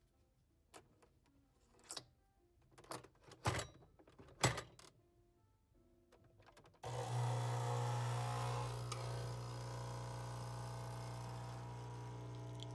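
A Nespresso capsule coffee machine being handled, with several sharp clicks and knocks, then about seven seconds in its pump starts with a steady hum as it brews coffee into the cup.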